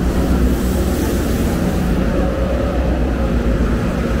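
Busy pedestrian street ambience: a steady, loud low rumble with faint snatches of distant voices.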